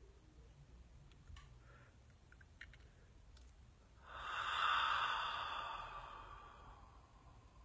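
A woman's long, audible breath out through an open mouth about four seconds in, rising quickly and fading away over about three seconds: a deep meditative exhale. A few faint clicks come before it.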